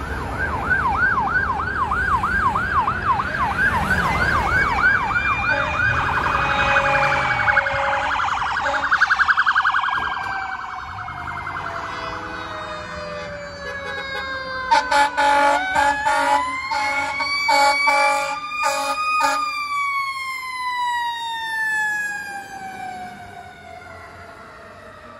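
Emergency vehicle sirens passing. A fast electronic yelp runs for the first several seconds, then a quicker warble and a falling wail. Later, a fire engine's siren rises under a string of short air-horn blasts, then winds slowly down in pitch.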